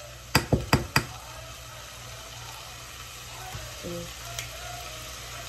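Ground beef chili sizzling in a skillet, with four quick metal clacks from the tongs within the first second.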